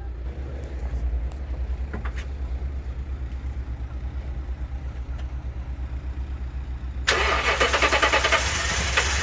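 A car engine being cranked by the starter motor in a steady rhythm, not catching. About seven seconds in, a loud harsh noise with a rapid pulse starts suddenly.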